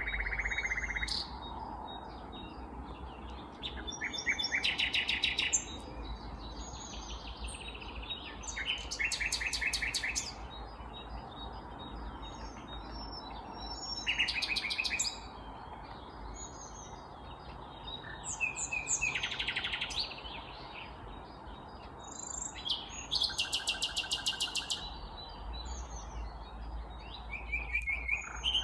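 Nightingale singing: a loud song phrase about every five seconds, each built on a fast rattling run of repeated notes, with fainter notes from other birds between the phrases.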